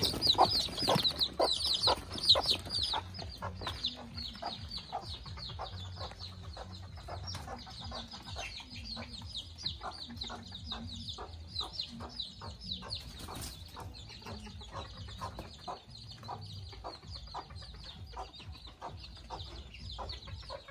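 Bantam chicks peeping: a rapid stream of high, falling cheeps, loudest for the first few seconds and fainter after. Short chicken clucks are mixed in throughout.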